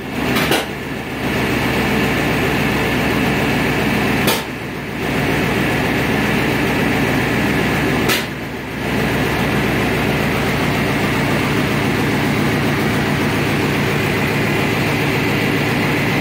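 Freshly installed Chevy V6 engine in a full-size pickup idling steadily. It dips briefly twice, each dip starting with a click.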